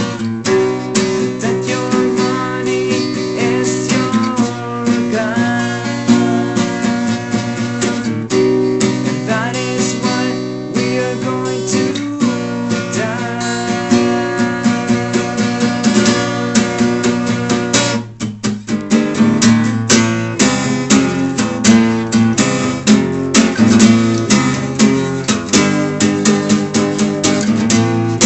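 Acoustic guitar playing, with picked notes and strums. About 18 seconds in it breaks off briefly, then carries on with denser rhythmic strumming.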